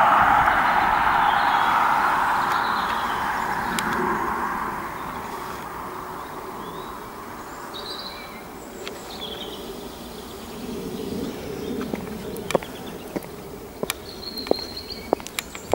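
A road vehicle passing by, its noise fading away over the first five seconds. After that come a few short bird chirps, and near the end sharp cracks of footsteps on dry twigs and branches.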